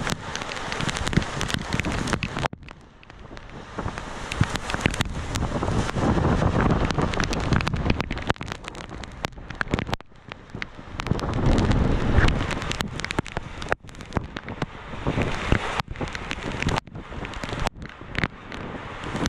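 Heavy wind-driven rain in a thunderstorm, with strong gusts rushing over and buffeting the microphone in rising and falling surges. Several sudden brief drop-outs break the sound.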